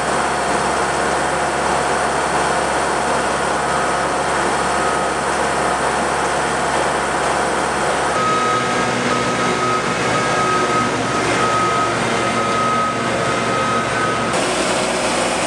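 Steady noise of heavy construction machinery running on a building site. From about halfway through, a vehicle's reversing alarm beeps roughly once a second. The background changes abruptly twice.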